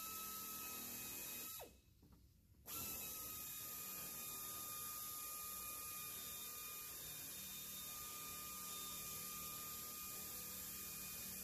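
Faint room tone: a steady hiss with a thin, high-pitched whine, dropping out for about a second near two seconds in.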